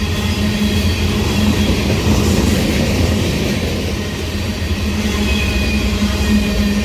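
Freight train of the Reading Blue Mountain & Northern sand train rolling by: a steady heavy rumble of wheels on rail, with a few faint high squeals in the second half.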